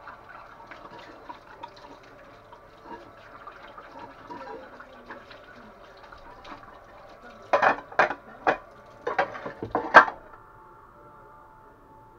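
A quick run of about six sharp knocks, about two-thirds of the way in, over faint steady background noise.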